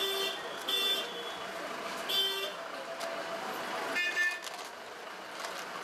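Vehicle horns honking in street traffic. Three short honks on one horn in the first couple of seconds, then a different, higher-pitched horn about four seconds in, over steady street noise.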